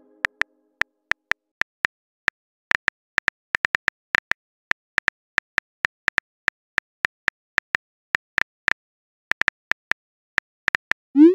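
Phone keyboard typing clicks: a quick, irregular patter of short taps as a message is typed. Near the end comes a short rising whoosh as the message is sent.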